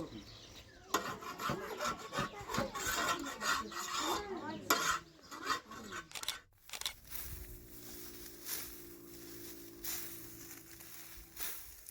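Quick rasping strokes, typical of dry wheat stalks being cut with a hand sickle, for about six seconds. After a short break a steady hum of several low tones follows.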